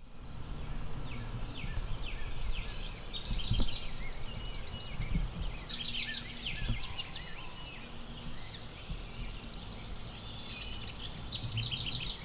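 Songbirds chirping and trilling in spring woodland, many short overlapping calls over a low steady rumble.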